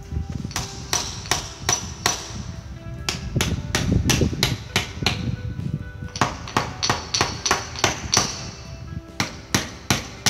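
Claw hammer tapping shims in under the bottom of a door frame, to raise the frame so the door stops hitting at the top. The strikes come in runs of about three a second, with short pauses between the runs.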